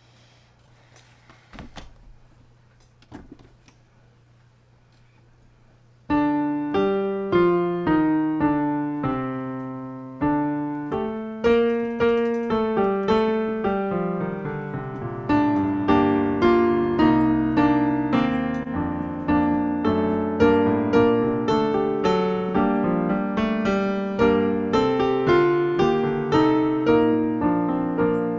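A few faint knocks, then solo piano music that starts suddenly about six seconds in and plays on as a steady stream of struck notes and chords.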